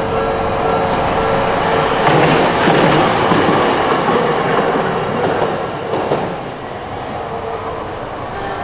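Toden Arakawa Line streetcar passing, its wheels clattering over the rails. The sound swells about two seconds in and dies away after about six seconds.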